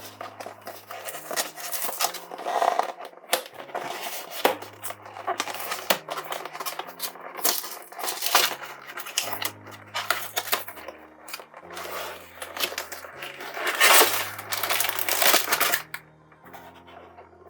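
Plastic LEGO Technic parts clicking, clattering and rustling as they are handled and fitted together, with a loud rustling flurry near the end. Background music with a slow bass line plays under it.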